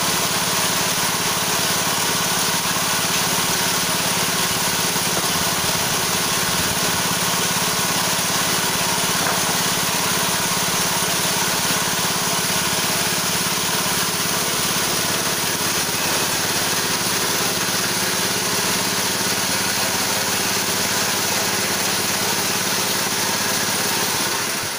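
A 6.5 hp single-cylinder four-stroke engine on a homemade chainsaw mill running steadily at a constant speed, then stopping about half a second before the end.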